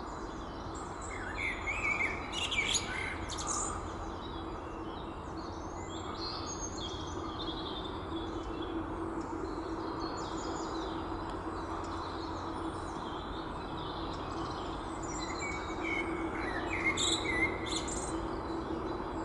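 Male common blackbird singing two phrases, one about a second in and another near the end. Each is a low warble that runs into a high, thin twitter. Faint high chirps come in between, over a steady low hum.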